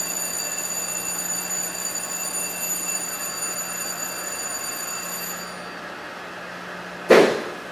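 Electrostatic powder coating gun spraying in a powder booth: a steady rush with a thin high-pitched whine that stops about five and a half seconds in, over the steady hum of the booth's extraction system. About seven seconds in there is one sudden loud blast that dies away quickly.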